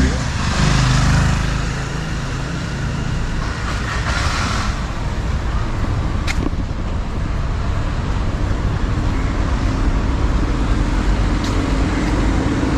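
City road traffic: engines running and vehicles passing in a continuous rumble, with two swells of noise in the first five seconds and a sharp click about six seconds in.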